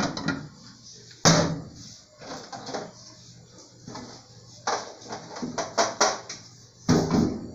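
An aluminium saucepan set down on a gas stove's metal grate with a clank, followed by several more sharp knocks and clatters, the loudest about a second in and another near the end.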